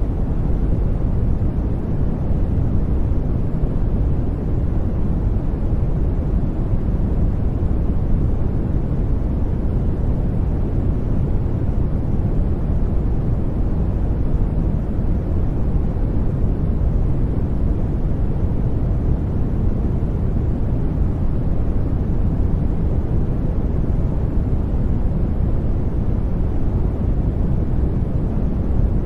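Brown noise: a steady, deep rumbling hiss, strongest in the bass and fading toward the treble, unchanging throughout.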